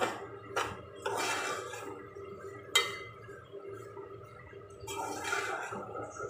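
A metal spoon stirring and scraping semolina roasting in oil in a metal pot. It clinks sharply against the pot three times in the first three seconds, with rasping scrapes through the grains in between, over a steady low hum.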